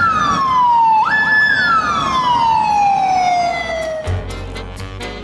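Japanese police motorcycle siren wailing through two cycles: each time the pitch shoots up quickly, holds for a moment, then slides slowly down, the second fall longer and lower. Low music with a beat takes over near the end.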